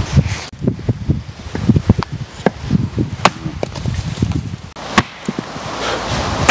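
Dry firewood being broken up: an irregular run of sharp woody cracks and knocks, the loudest strikes about three and five seconds in.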